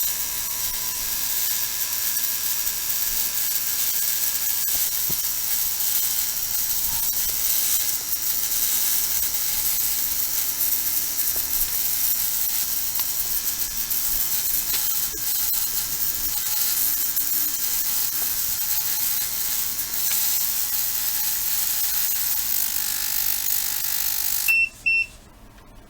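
Small ultrasonic cleaning bath running with a steady high hiss and buzz as it cleans battery-acid corrosion off a battery terminal in PCB cleaning fluid. Near the end it stops suddenly and gives two short beeps.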